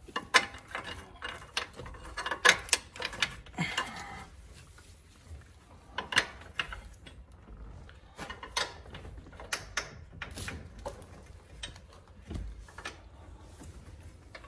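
Hand tools on car suspension bolts: irregular metal clicks and clinks, with short runs of ratchet-wrench clicking as the bolts are run in.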